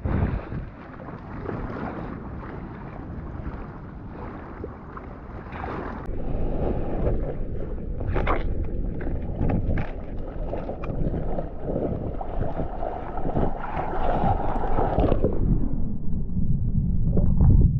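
Ocean water rushing and splashing against a GoPro's waterproof housing as a surfer paddles into and rides a wave. It gets louder about six seconds in, with scattered sharp splashes, and a few seconds before the end it turns muffled and low.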